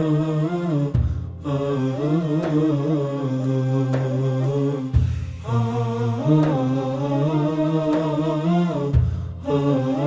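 Wordless vocal music: voices humming a slow melody over a low sustained drone, in phrases of about four seconds with brief breaks. This is the lead-in to a sung Turkish ilahi (religious hymn).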